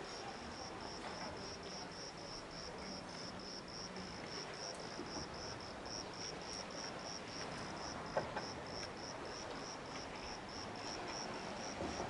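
An insect chirping in an even, unbroken rhythm of high pulses, about four a second, over a faint background hiss. One short click about eight seconds in.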